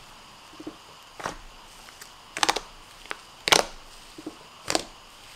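Blue cloud slime made with Instant Snow squished and pressed by hand, giving several sharp crackling pops, the loudest about three and a half seconds in.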